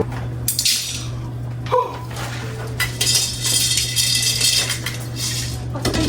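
Kitchen clatter: dishes and cutlery clinking and knocking, with one ringing clink about two seconds in, over a steady low hum.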